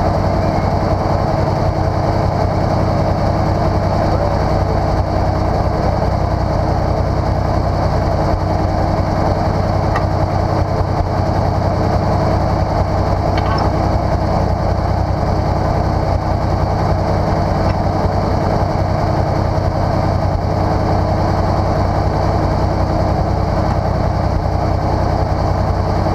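Off-road vehicle's engine idling steadily, with an unchanging low pitch.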